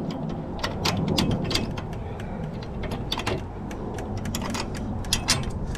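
Irregular metallic clicks and clinks of nuts, bolts and a metal mounting bracket being fitted and tightened down onto a hose reel, over a steady low rumble.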